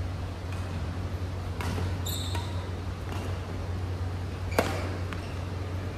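Badminton rally: sharp cracks of rackets striking the shuttlecock, the loudest about four and a half seconds in, and a short squeak about two seconds in, over a steady low hum.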